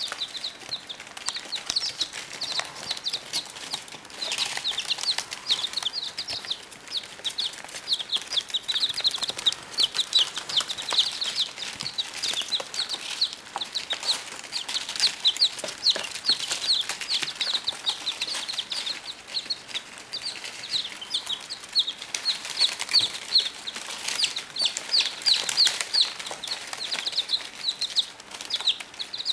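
Baby chicks peeping almost without pause: many short, high, falling chirps. Light clicks come from their pecking and scratching on newspaper.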